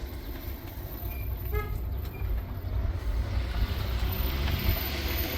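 Low, steady rumble of a motor vehicle on the move, with a brief horn-like toot about one and a half seconds in.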